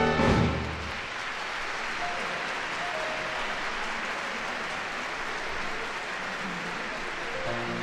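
Concert audience applauding as the big band's final chord cuts off, about half a second in. A few soft notes of the next tune come in near the end.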